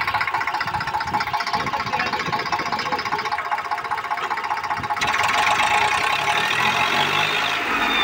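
Eicher 548 tractor's diesel engine running with a steady rapid pulse. About five seconds in it revs up louder under load, pulling a fully loaded trolley out of the sand.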